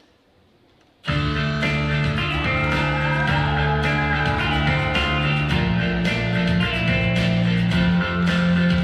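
Near silence, then a guitar-led rock music track starts abruptly about a second in and plays on loudly.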